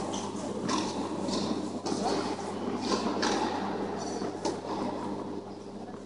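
Ambience of an indoor tennis hall: a steady low hum under a hiss of room noise, with a few sharp knocks and faint distant voices.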